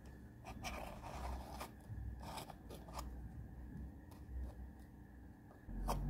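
Small metal clicks and scrapes from an old table lighter's top mechanism being worked by hand. Just before the end comes a sharper click with a low knock as the metal lighter insert is pulled out of its wooden case.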